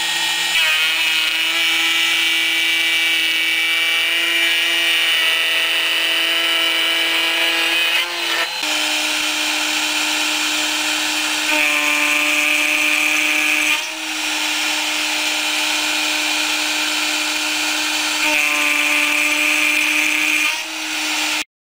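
Porter-Cable router on a CNC gantry running at high speed as its end mill cuts aluminum: a steady motor whine with a louder high-pitched cutting tone that comes in for a couple of seconds twice, and brief dips about 8 and 14 seconds in.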